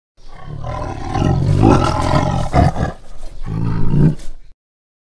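Tiger roaring, two roars in a row, the second shorter, then it stops about four and a half seconds in.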